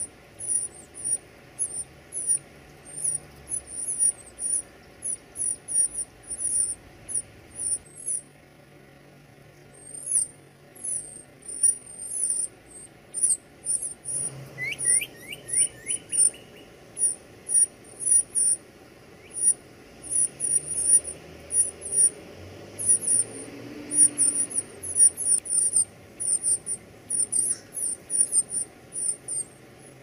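Northern cardinal nestlings begging to be fed: a rapid, continual run of thin, very high chirps, pausing briefly about a third of the way in. A short quick series of lower notes comes about halfway through.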